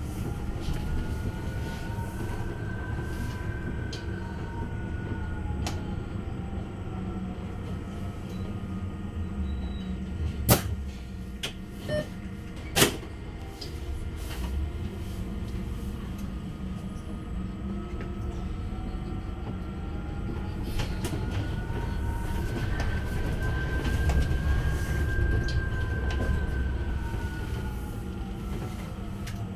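Heuliez GX337 E electric bus heard from inside the cabin, its traction motor whining up in pitch as the bus gathers speed and back down as it slows, twice, over a steady rumble of tyres and body. Between the two runs come a few sharp clacks, the loudest about ten and thirteen seconds in.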